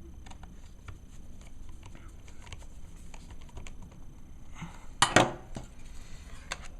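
Small scattered clicks and taps of hands working on a laptop's plastic case and parts, with a louder pair of sharp clicks about five seconds in.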